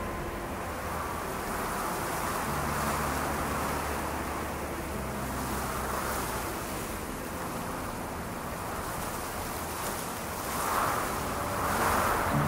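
Steady hiss of rain and wet street ambience, swelling a few times, under soft ambient music with held low bass notes.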